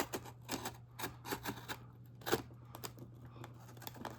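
A blade cutting through the packing tape and cardboard of a shipping box: a run of short, irregular crackles and clicks, the sharpest about two and a half seconds in, over a steady low electrical hum.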